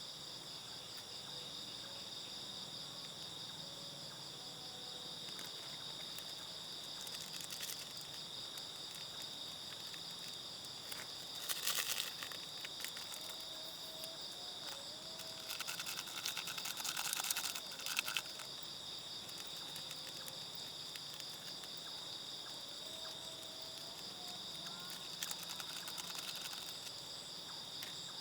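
Steady chorus of crickets and other insects, several high shrill tones held without a break. A louder scratchy rustle about twelve seconds in and again for a couple of seconds a little later.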